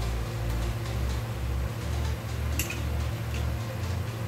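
Background music with a stepping bass line and a light ticking beat, with one short sharp click about two and a half seconds in.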